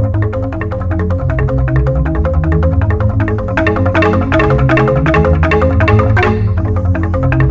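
Balinese jegog ensemble of large bamboo-tube xylophones struck with mallets: a fast, even stream of struck notes over deep, sustained bass tones. The playing grows brighter and louder about four seconds in.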